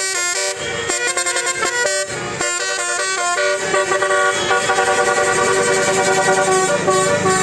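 Bus's telolet 'basuri' musical air horn playing a tune: a quick run of short notes, then longer held notes from about halfway. Engine noise runs underneath in the second half.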